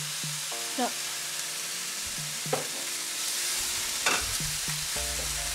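Bean sprouts sizzling steadily as they stir-fry in hot oil in a non-stick wok, with a few brief scrapes of a silicone spatula against the pan.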